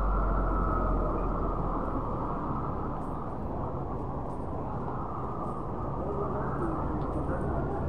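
Busy city street ambience: a steady rumble of road traffic, heaviest and deepest in the first second or so.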